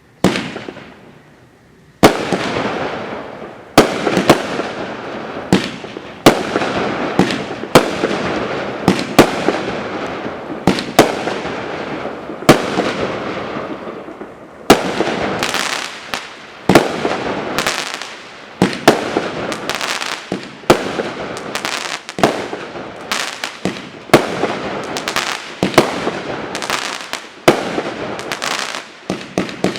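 A Shock Wave Full Charge 500-gram fireworks cake firing. A first shot is followed by a fading hiss, then about two seconds in a run of sharp bangs begins, roughly one a second, each trailed by a hissing, crackling decay. The shots come closer together in the second half and fire in a rapid burst at the very end.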